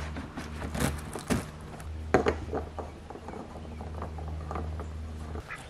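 Scattered clicks and hollow knocks of a plastic bulkhead fitting being handled against a plastic IBC tote and its metal cage, over a steady low hum that stops shortly before the end.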